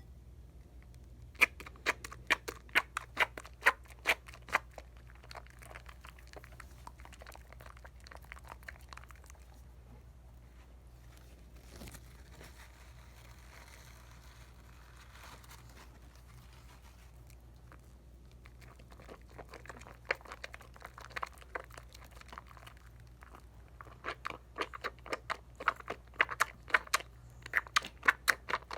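Wet soap lather being worked between hands on a bar of Dial coconut soap, squishing and crackling. There are runs of quick sharp squelches near the start and again in the last few seconds, with softer crackling of foam in between.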